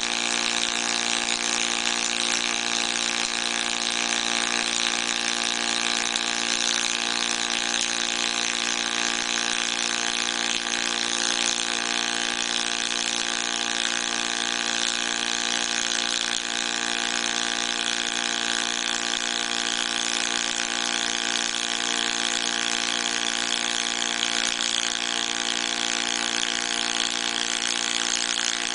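Pulsed MIG welding arc burning steadily on 1.2 mm metal-powder-cored wire (FLUXOFIL M8) from a MAHE sy-MIG 420 CWK pulse power source: a continuous, even hiss with a steady hum of several fixed tones beneath it, unbroken throughout.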